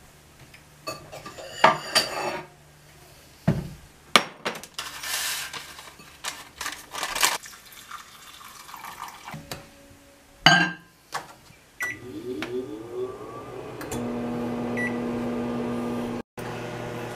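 Kitchen handling sounds: a cabinet opened and a bowl knocked down, then water poured from a filter pitcher into a bowl of oats. A loud knock and a few short keypad beeps follow, and a microwave oven starts and runs with a steady hum, heating the oats.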